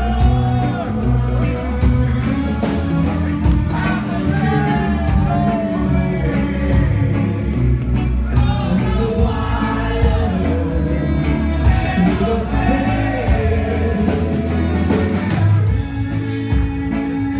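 Live rock band playing loudly through a PA, with drums, electric guitars and a heavy bass line under sung lead vocals.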